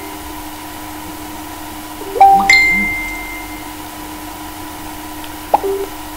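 Electronic chime: a quick rising blip about two seconds in opens into several ringing tones that fade over about a second. Two more brief blips come near the end, over a faint steady hum.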